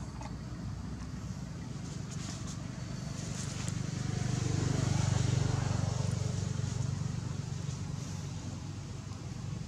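A motor vehicle passing: a low engine and road rumble that swells to its loudest about five seconds in and fades again. A few faint clicks come earlier.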